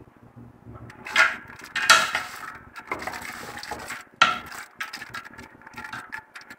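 Wooden spoon stirring soaked white beans in an aluminium pressure cooker, scraping and clacking against the pot, with a few sharp knocks.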